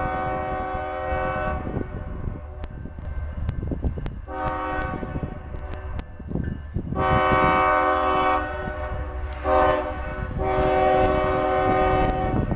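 Freight locomotive's multi-chime air horn sounding a series of blasts, the last four in the long-long-short-long pattern blown for a grade crossing. Beneath it runs the steady low rumble of the diesel and the train on the rails.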